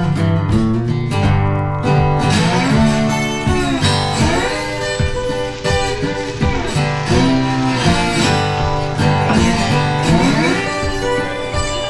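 Background music with guitar, a steady strummed and plucked tune with some sliding notes.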